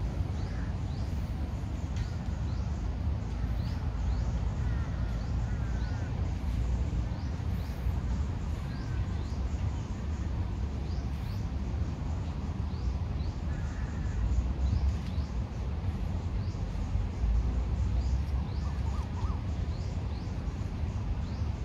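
Birds calling: many short, high chirps scattered throughout, and a few lower call phrases, over a steady low rumble.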